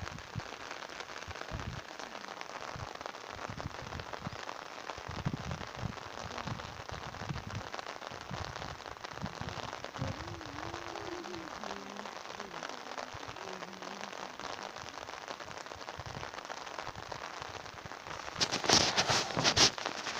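Steady rain falling on open water, an even hiss. Near the end a run of loud, sharp crackling taps comes in.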